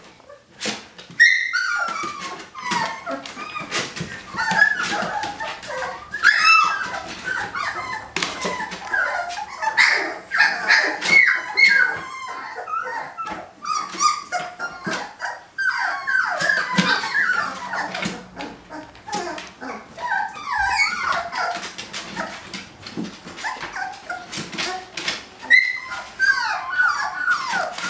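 A litter of 18-day-old puppies whining and squeaking almost without pause, many short high calls overlapping, with scattered short clicks and a few brief lulls.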